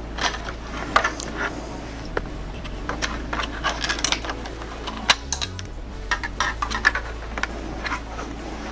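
Irregular plastic and metal clicks and knocks from the parts of an Oreck Edge upright vacuum being handled as its wheel axle is worked free, over a steady low hum.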